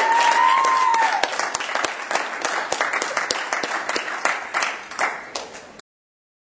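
Audience applauding, with a high, sliding cheer from one voice in the first second. The clapping thins out and cuts off abruptly shortly before the end.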